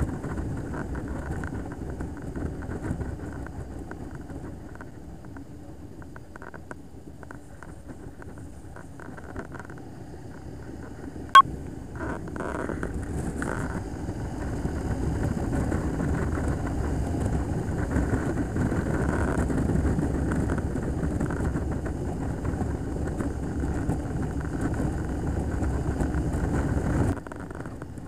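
Motorcycle running on the road with steady engine and wind noise, growing louder from about fourteen seconds in and dropping suddenly near the end; a single sharp click about eleven seconds in.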